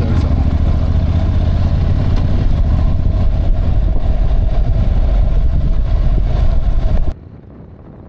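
Motorcycle on the move: engine running under a heavy low rumble of wind buffeting the camera microphone, steady throughout, until it cuts off abruptly about seven seconds in to a much quieter background.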